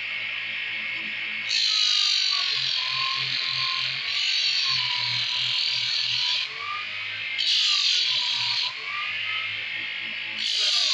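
A homemade disc sander driven by a 180-watt sewing machine motor runs with a steady hum while wood is pressed against the sanding disc in three spells, the first starting about a second and a half in. Each press brings a loud grinding hiss of abrasive on wood, and the motor's whine sags and wavers in pitch under the load.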